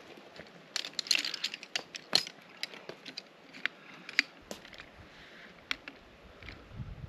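Rustling and a string of sharp clicks as the shock-corded pole sections of a folding camp chair frame are unfolded and snap into their joints. The busiest rustling and clicking comes about one to two seconds in.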